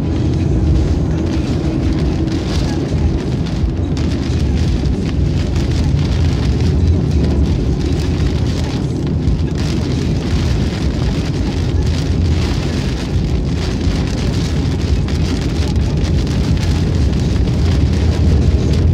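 Rain hitting a moving car, heard from inside the cabin, over a steady low rumble of tyres and engine on a wet highway.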